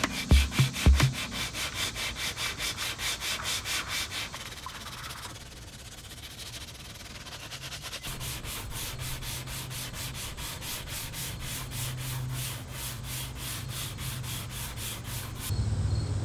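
Hand sanding of body filler on a car body panel: rapid back-and-forth scraping strokes of sandpaper, pausing for a few seconds midway and then resuming. A few deep thumps sound in the first second.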